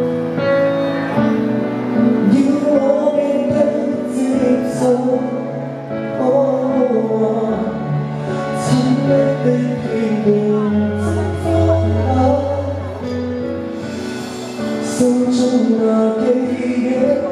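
Pop song backing track played over a PA system, with a man singing live into a handheld microphone.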